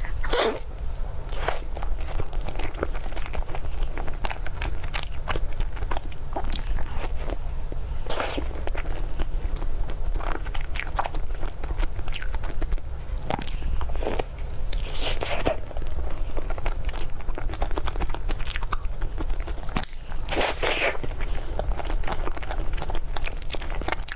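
Close-miked eating: crunchy bites and chewing, many sharp crackling clicks with a few longer crunches, over a low steady hum.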